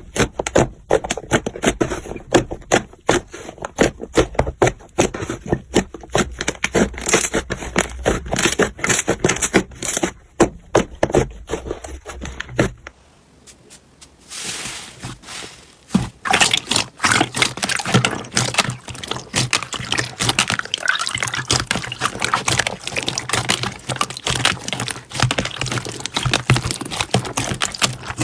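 Slime being squished and poked by hand, giving rapid sticky clicks and crackles. It cuts off suddenly about thirteen seconds in, and a denser, wetter crackling of slime starts about three seconds later.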